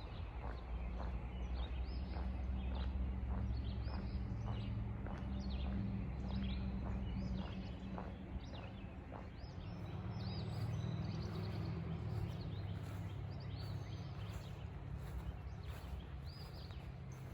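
Woodland birds chirping and calling again and again over a low steady rumble, with faint footstep-like ticks in the first half.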